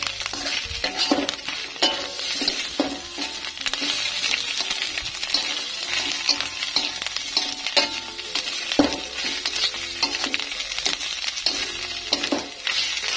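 Oyster mushroom strips sizzling in a hot aluminium wok while a metal spatula stirs and scrapes them, giving a steady hiss broken by frequent short metal scrapes and clicks against the pan.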